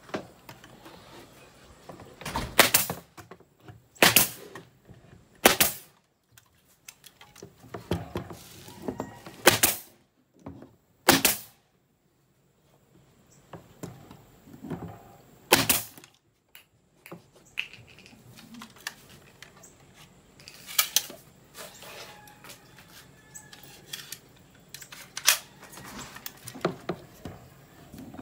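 Pneumatic nail gun firing nails into plywood: about nine sharp shots a few seconds apart at uneven intervals, with quieter handling knocks in between.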